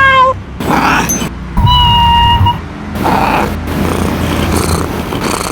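Domestic cat meowing: a long meow ends just as it begins, and a second, steady-pitched meow comes about two seconds in.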